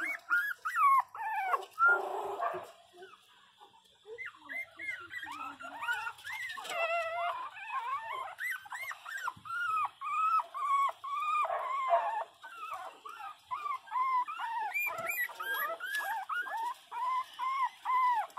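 Pinscher puppy whining and crying over and over in short high-pitched cries that rise and fall in pitch, with a brief lull about three seconds in.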